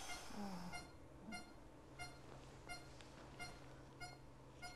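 Faint, steady beeping from a bedside patient monitor, a short pitched beep about every two-thirds of a second, the pulse tone keeping time with the patient's heartbeat. A faint low hum runs under it.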